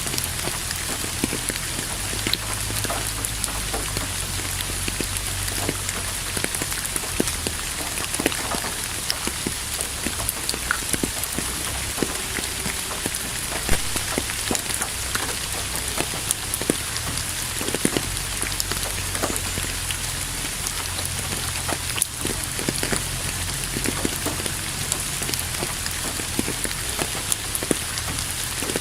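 Steady rain falling on a surface, with many separate drops ticking through an even hiss over a low rumble underneath.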